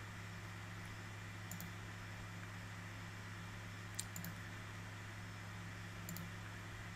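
Three faint computer mouse clicks, each a quick double tick, about a second and a half in, at four seconds and near six seconds, over a steady low hum.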